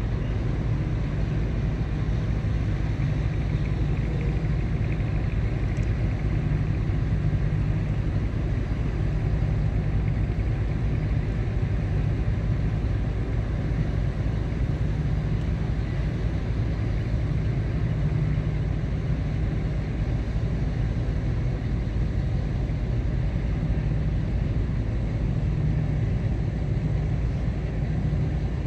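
Steady low drone of ship engines from the tug and the large cargo ship it is pulling, unchanging throughout.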